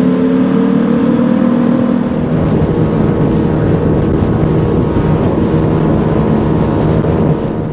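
Evinrude 175 outboard motor running at speed, rising slightly in pitch over the first two seconds, then a steady drone that falls away near the end.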